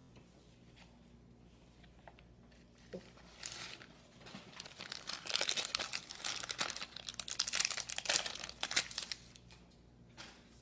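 A baseball card pack's wrapper being torn open and crinkled, starting about three seconds in and going on for about five seconds, after a few soft clicks.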